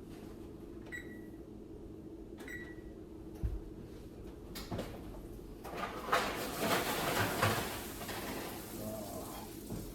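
An oven being opened and a baking tray of roasted Brussels sprouts pulled out. Two short high pings come about a second apart early on, then a thump, then a few seconds of rattling and scraping from the tray and door.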